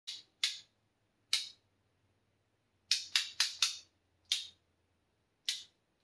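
Toggle switches on a RaceSpec switch panel being flicked by hand: about nine sharp clicks at uneven intervals, with a quick run of four a little past the middle.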